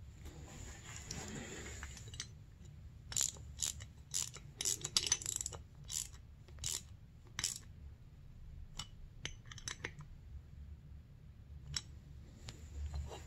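A string of light, sharp clicks and taps, about a dozen over four seconds, then a few scattered ones: small hard objects being handled close to the microphone.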